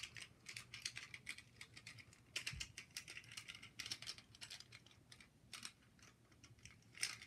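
Faint, irregular clicking and rattling of small plastic parts as a toy car is pried apart by hand to free its steering wheel and dashboard pieces, with a soft knock about two and a half seconds in.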